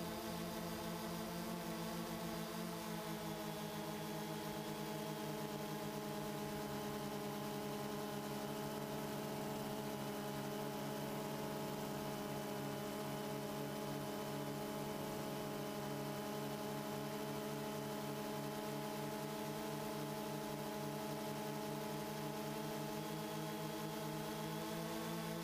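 DJI Phantom 2 quadcopter's motors and propellers humming steadily in flight, as picked up by the camera on board. The pitch dips slightly a few seconds in and rises again near the end as the throttle changes.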